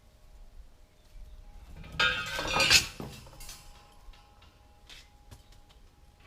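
Metal clanking and rattling for just under a second, about two seconds in, with a ringing metallic edge. A few light knocks follow.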